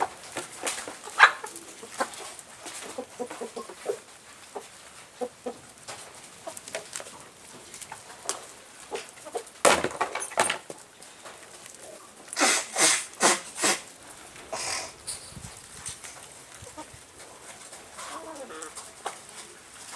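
Chickens clucking in short, repeated calls. There is one loud harsh burst about halfway through and a quick run of four or five more a couple of seconds later.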